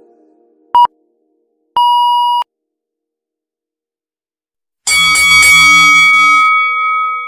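Workout timer command sounds: a short electronic beep, then a longer beep at the same pitch signalling the end of the rest countdown and the start of the set. A few seconds later a loud ringing chime with several tones sounds and fades away slowly.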